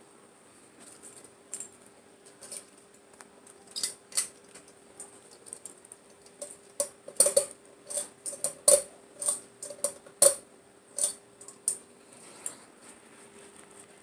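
Hunter Discovery ceiling fan running with a faint steady motor hum, while its metal pull chain is handled and rattles and clicks in a string of sharp ticks, thickest and loudest in the middle.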